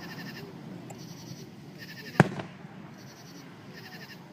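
A single firework bang about two seconds in, a sharp crack with a short echoing tail. Under it run a low murmur of distant voices and a high rhythmic chirping about twice a second.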